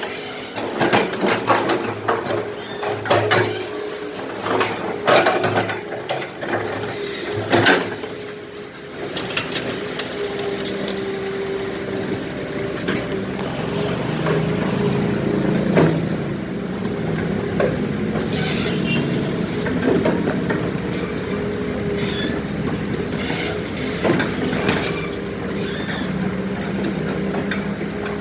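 Excavator diesel engine running steadily while the bucket works broken concrete: a dense clatter of clanks and scraping for about the first eight seconds, then the engine alone with a few single knocks.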